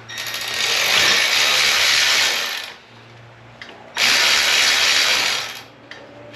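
Handheld power tool running in two bursts, spinning a nut down onto a stud: the first about two and a half seconds long with a spin-up and run-down, the second shorter and starting about four seconds in.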